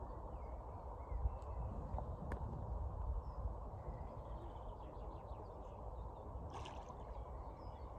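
Outdoor lakeside ambience: a low rumble of wind on the microphone with faint bird calls over it. A sharp click comes about a second in, and there is a brief rustle near the end.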